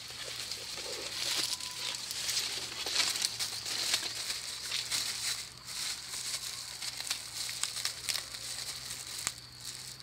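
Continuous rustling and crinkling, dotted with many small crackles and snaps.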